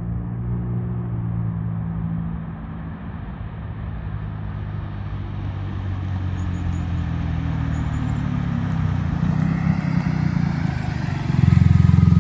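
Volkswagen Polo Highline's 1.0 turbo three-cylinder engine running through an aftermarket sports exhaust as the car drives at low, even revs, growing steadily louder, with a sudden louder step near the end.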